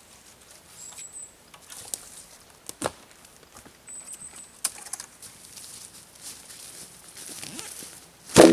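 Footsteps crunching on a dry forest floor littered with twigs and branches, with scattered sharp cracks and two brief high chirps. Near the end a loud wooden knock with a short ringing tone.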